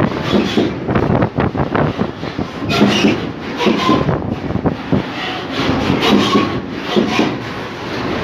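Freight train of container flat wagons rolling past close by: a steady rumble of steel wheels on rail, with repeated clacks as the wheelsets cross rail joints.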